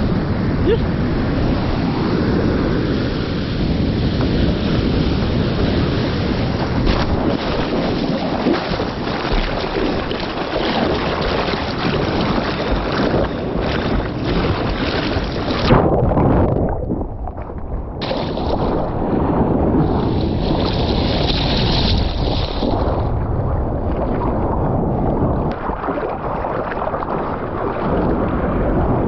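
Ocean surf and water sloshing and splashing around an action camera's microphone as a bodyboarder paddles out, with wind buffeting the microphone. About halfway through, the sound goes muffled for a couple of seconds.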